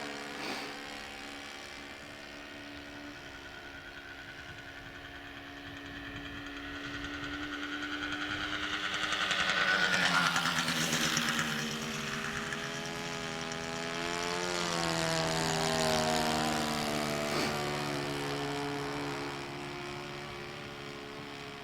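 Seagull Spacewalker 46 radio-controlled model plane's motor droning steadily in flight. It grows louder as the plane passes about halfway through and again a few seconds later, the pitch dropping after each pass, then fades near the end.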